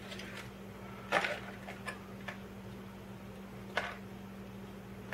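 A few light clicks and taps as a thin metal tool and small rotary-tool accessories are handled against a plastic accessory case. The loudest comes about a second in and another near four seconds, over a low steady hum.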